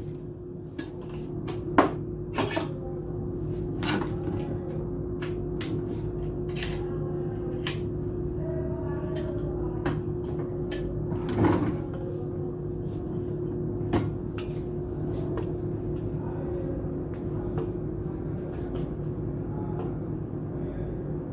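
Scattered clicks and knocks of dismantled submersible pump parts being handled, over a steady low hum.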